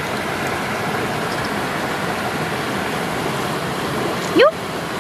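Steady rush of running water. Near the end comes one short rising vocal sound, like a brief exclamation.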